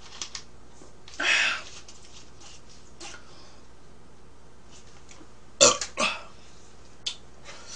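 A woman burping after drinking cola, short and loud, with a few sharp clicks from the plastic soda bottle being handled.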